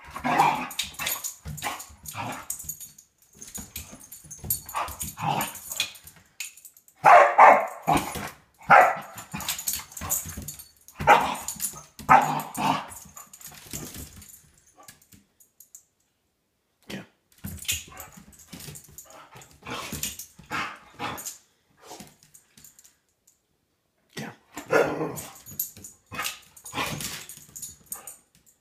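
Dog barking in bouts while play-fighting with a cat, with several loud barks in quick succession and a few quiet spells in between.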